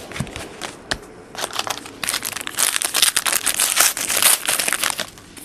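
Plastic or foil trading card pack wrapper being handled and torn open, with a few seconds of dense crinkling after a single click.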